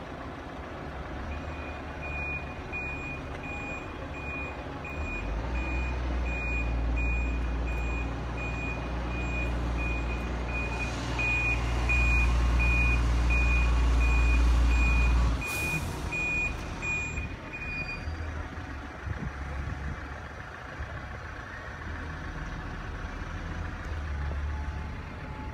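An electronic warning beeper sounds a high pulsed tone, about two beeps a second, and stops about 18 seconds in. Under it a heavy diesel engine rumbles loudly through the middle and cuts off abruptly.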